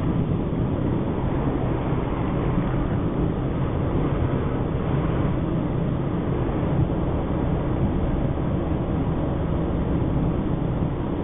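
Car driving along a road, heard from inside the cabin: steady engine and tyre noise.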